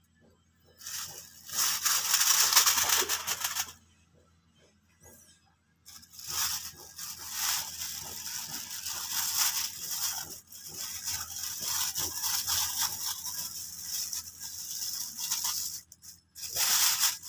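Thin plastic bag crinkling and rustling as fish are pushed into it: a burst of a few seconds, a short pause, then a longer stretch of crinkling.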